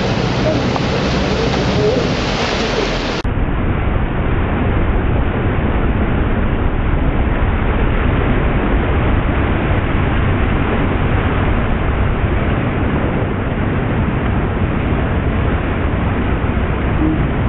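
Steady rush of a boat's churning wake mixed with the drone of the towboat's engine. About three seconds in, the sound changes abruptly to a duller, more muffled version and then runs on steadily.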